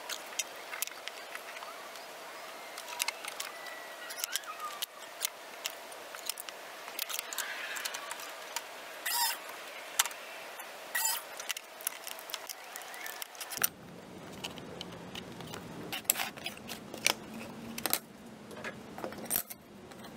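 Scattered clicks, taps and light rattles of a plexiglass sheet and thin wooden strips being handled on a workbench. About two-thirds of the way through, a steady low hum comes in under the taps.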